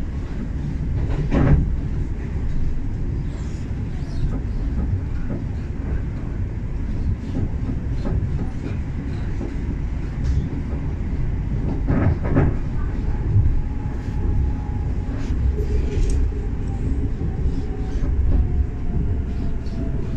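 Class 710 electric multiple unit running at speed, heard from inside the carriage: a steady low rumble of wheels on the track with occasional knocks as they pass over rail joints, the loudest about a second and a half in and again about twelve seconds in. A faint whine falls slowly in pitch over the last few seconds.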